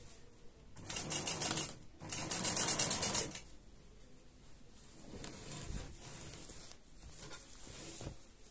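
Sewing machine stitching in two short runs of about a second each, with a fast, even needle rhythm; fainter sounds follow later.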